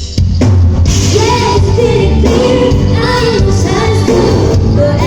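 A woman singing a pop song over a loud, bass-heavy backing track. The music comes in suddenly right at the start.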